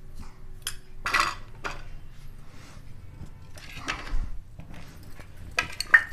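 A spoon scraping and tapping against a ceramic bowl as spices are spooned in, then small steel bowls clinking against a plate as they are moved, with the sharpest clinks near the end.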